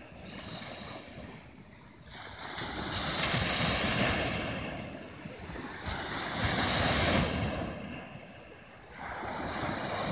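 Sea waves surging onto the shore and breaking. Two big swells of surf rise, about two and six seconds in, each building and then ebbing away, with a third coming in near the end.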